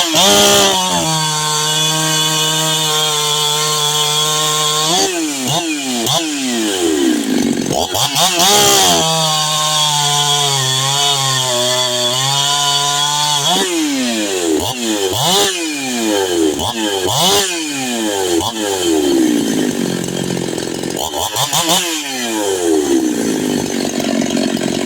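Ported big-bore Jonsered 2171 two-stroke chainsaw cutting hickory: it revs high, settles into a lower, steady pitch under load through two long cuts, about 1 to 5 seconds in and again about 9 to 13 seconds in. From about 14 seconds it is revved up and down quickly, again and again.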